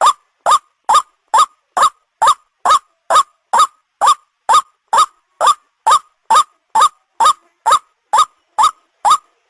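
White-breasted waterhen (ruak-ruak) calling: a monotonous run of short, loud rising 'kruak' notes, about two a second, in a lure recording played to attract the birds.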